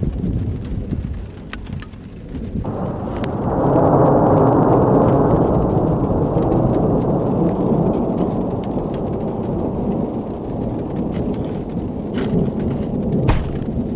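A long roll of thunder from a thunderstorm starts suddenly about three seconds in, swells, then slowly rumbles away.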